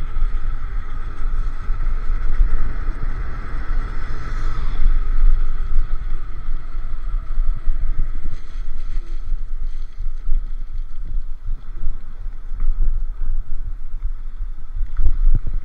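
Wind buffeting the microphone of an electric scooter moving at speed, with a steady high whine in the first few seconds that fades out.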